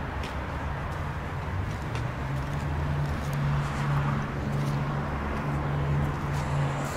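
A vehicle engine idling steadily with a low hum that grows a little louder about two seconds in, over general outdoor traffic noise.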